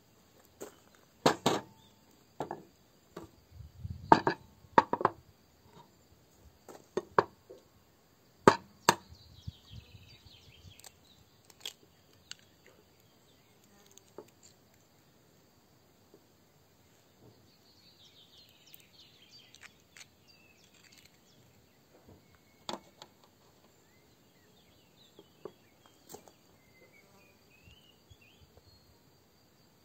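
Kitchen-handling knocks and clicks of glass and plastic bowls and utensils on a wooden table while stuffing is mixed: a quick cluster of sharp knocks in the first ten seconds, then only occasional taps. Faint chirps sound in the background.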